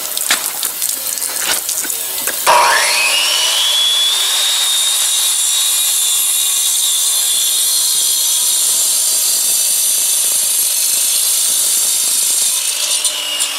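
A few knocks, then about two and a half seconds in a water-fed cut-off saw spins up with a quickly rising whine. It cuts through a concrete paver with a steady high whine and a grinding hiss, the pitch dropping slightly near the end.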